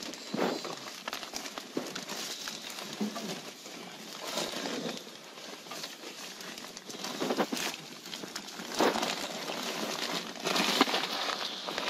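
Fiberglass insulation batts and house wrap rustling and crinkling as they are handled and shoved into place, in irregular louder bursts.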